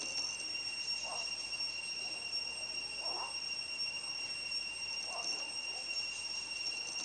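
A steady, high-pitched insect drone in tropical forest, with three faint short calls about two seconds apart from a buffy fish owl.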